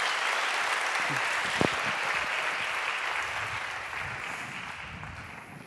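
Audience applauding, dying away near the end, with one brief knock about one and a half seconds in.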